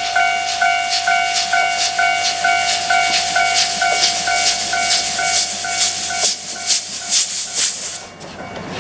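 Japanese level-crossing warning bell ringing in rapid pulses, about three a second, stopping about six seconds in. Beneath it, the rhythmic chuffing exhaust of an approaching JNR Class C11 steam locomotive grows louder, then cuts off sharply about eight seconds in.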